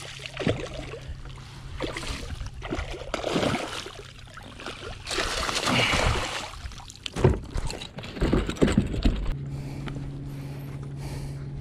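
Irregular knocks, bumps and sloshing on a kayak as a freshly caught redfish is handled for measuring, with a cluster of sharp knocks late on. A steady low hum sets in near the end.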